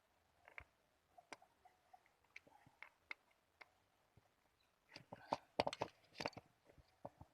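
Small engine parts and tools being handled during hand assembly of a two-stroke trimmer engine: scattered light clicks and taps, with a busier run of clicking and rattling from about five seconds in.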